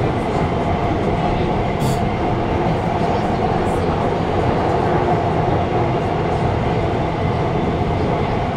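Interior running noise of an Alstom Movia R151 metro train in motion: a steady rumble with a faint steady tone above it. There is a brief click about two seconds in.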